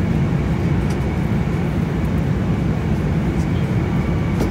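Steady low rumble of airliner cabin noise, with a few faint clicks from a baby bassinet being handled.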